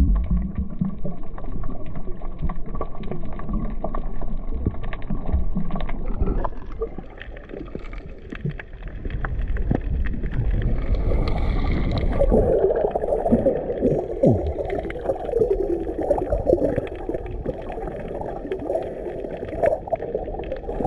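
Underwater noise picked up through a camera's waterproof housing: a steady gurgling wash of water with scattered clicks and knocks, dipping briefly a third of the way in and growing fuller in the second half.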